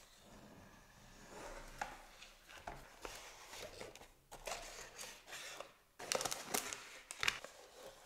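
Cardboard packaging and accessories of an iPod box handled by cotton-gloved hands: rustling and scraping with many sharp clicks, busier and louder from about six seconds in.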